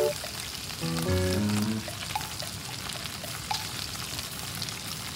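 Gyoza frying in a stainless-steel gyoza griddle, oil and water sizzling steadily. A brief pitched sound, tune-like, comes in about a second in.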